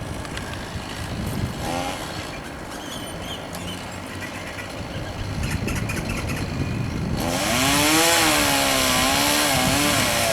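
Electric chainsaw cutting a tree branch overhead. It runs fainter at first, then about seven seconds in comes in much louder as it bites into the wood, its pitch rising and falling under load.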